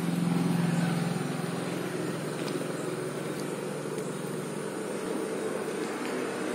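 A steady, low, engine-like hum, loudest in the first second and then holding level, with a few faint clicks.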